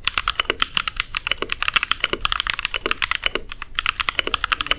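Custom 60% mechanical keyboard typed on quickly: a dense, steady run of key clacks, about ten strokes a second, with a short break about three and a half seconds in.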